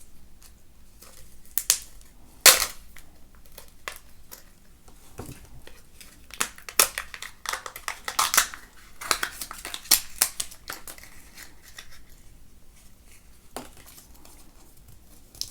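A Kinder Joy egg being opened by hand: its wrapper crinkling and tearing, with scattered sharp clicks and snaps of the plastic egg and capsule. The handling noise comes in short bursts, busiest in the middle.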